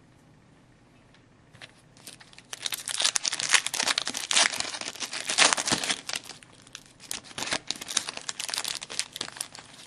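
Foil wrapper of a hockey card pack being torn open and crinkled. It starts about two seconds in as a dense crackle, loudest in the first few seconds, then thins to lighter crinkles.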